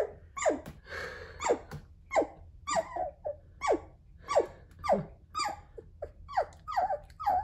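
A two-week-old Goldendoodle puppy barking in a run of short yips. Each yip falls sharply in pitch, coming about one and a half times a second.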